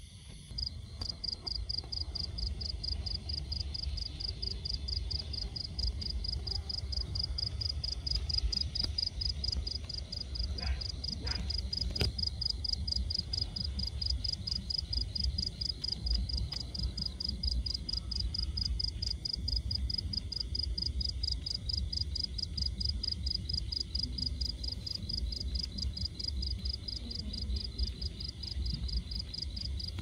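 A cricket trilling in a fast, even pulse at a high pitch, starting about half a second in, over a low rumble.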